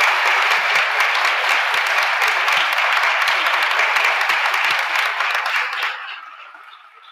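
Studio audience applauding, a dense steady clapping that dies away quickly about six seconds in.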